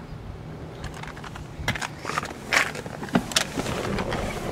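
Handling noise from a moving camera: a few light clicks and knocks with some rustling. The strongest knock comes about two and a half seconds in.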